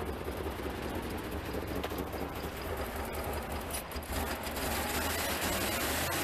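1988 Pontiac Trans Am GTA's V8 engine idling steadily with the hood open, getting a little louder about four seconds in.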